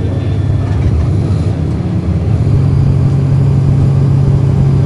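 Cummins ISL9 diesel engine of a 2010 NABI 40-SFW transit bus running, heard from inside at the rear of the bus. Its low hum grows a little louder and steadier about halfway through.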